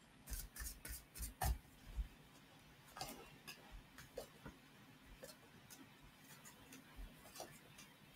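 Tarot cards being handled and shuffled in the hands: faint, irregular flicks and taps of card on card and cardboard, closest together in the first couple of seconds.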